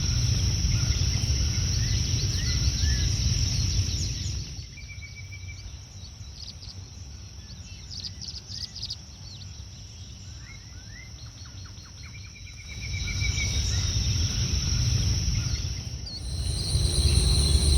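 Outdoor ambience of small birds chirping and trilling over a steady high insect drone and a low rumble. The mix drops to quieter chirping about four seconds in, returns near the thirteenth second, and changes to a different pair of insect tones near the end.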